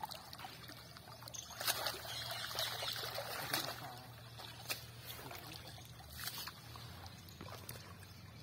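Pond water sloshing and trickling as a seine net is dragged and lifted through the shallows, with a few sharp splashes.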